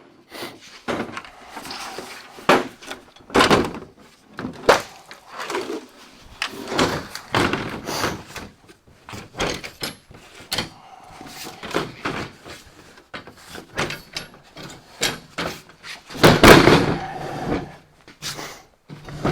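A series of irregular knocks, clunks and clatter, with a longer, louder burst of banging about sixteen seconds in.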